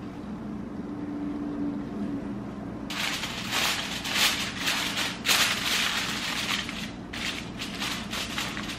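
Aluminium foil being crinkled and pressed over a baking dish: about three seconds in, a run of irregular, sharp crackling and rustling sets in and goes on in uneven bursts.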